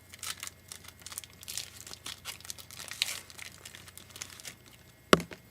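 Trading cards and their pack wrapper being handled: crinkling and rustling with scattered small clicks, and one sharp snap near the end.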